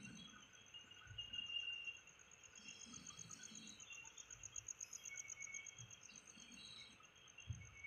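Crickets chirping at night: a fast, pulsing high trill that grows louder in the middle and then fades, with fainter chirps lower down. Faint overall.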